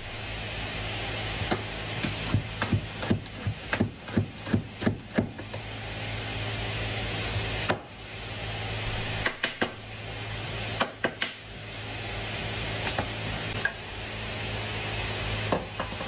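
Knocks and taps on a wooden kitchen board as food is prepared by hand: a quick run of sharp knocks a few seconds in, then scattered ones, over a steady low hum and hiss.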